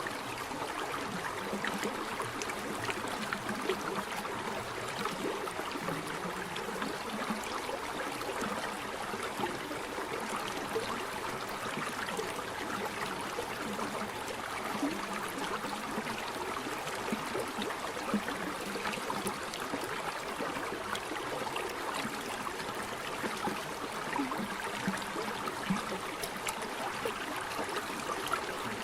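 Running water: a stream or small waterfall splashing and gurgling steadily.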